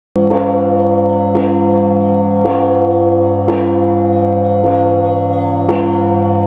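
Orthodox church bells ringing, a new stroke about once a second over a dense, lasting hum from the bells already sounding. The ringing cuts in abruptly after a moment of dead silence at the very start.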